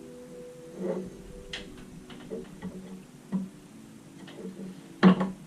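Light clicks and taps of graphics card cooler parts being handled and fitted together, with a loud knock about five seconds in, over soft background music.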